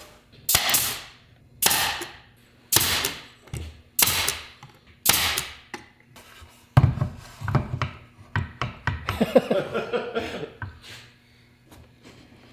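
Five sharp tool strikes on wood, about a second apart, each fading out quickly. They are followed by a few seconds of lighter clattering and handling noise.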